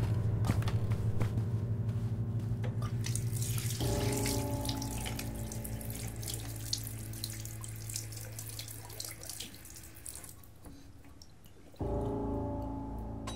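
Water runs from a bathroom tap into a sink and splashes as a man washes his face, then stops about ten seconds in as the tap is turned off. Under it plays a low droning film score, with a new held chord coming in about four seconds in and again near the end.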